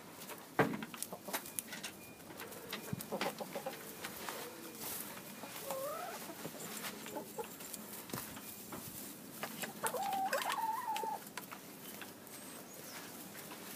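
Ex-battery hens clucking while pecking at a clump of grass, with scattered sharp clicks and rustles; a short rising call about six seconds in and a longer, wavering call about ten seconds in.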